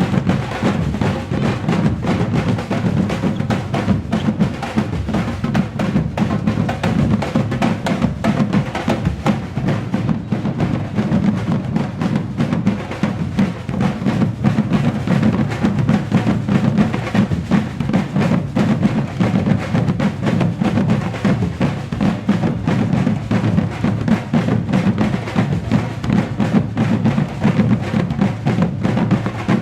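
Batucada drum ensemble playing a fast, steady groove: deep bass drums under dense strokes of snares and other hand drums, without a break.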